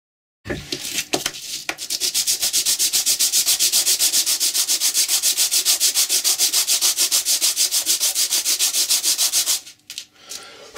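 A copper disc rubbed by hand back and forth on a sheet of abrasive paper, roughening its face to give a key for super glue. After a few separate scrapes, it settles into fast, even scratching strokes that stop abruptly near the end.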